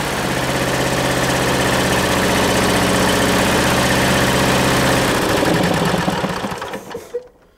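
MTD LT-185 hydrostatic lawn tractor engine running steadily, then shut off: about five seconds in it changes and runs down, dying away to silence about seven seconds in.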